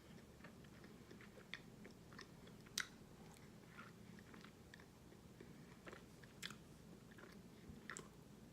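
Faint, scattered crunches of someone chewing hard, brittle microwave-baked cornstarch chunks, with a sharper crunch about three seconds in.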